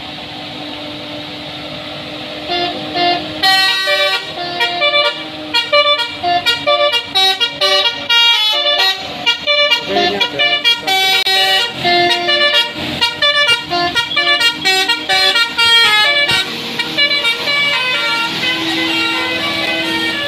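Bus multi-tone telolet air horn playing a quick tune of short notes, starting a couple of seconds in and stopping a few seconds before the end. Under and around it, the bus's engine runs steadily.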